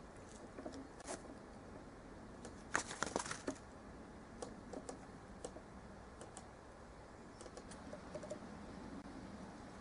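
Faint, scattered clicks and ticks over quiet outdoor hiss, with a quick cluster of sharp clicks about three seconds in and lighter ones later.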